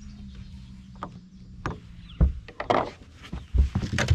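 Handling knocks and thumps on a bass boat's deck: a run of irregular clicks and knocks with two heavy low thumps, over a steady low hum.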